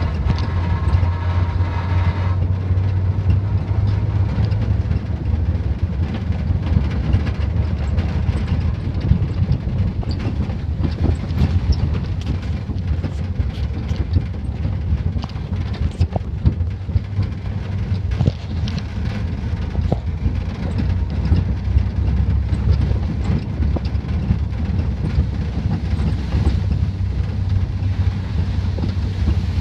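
Pickup truck driving over a rough dirt track, heard from the open bed: a steady low engine and road rumble with frequent knocks and rattles as it goes over the bumps.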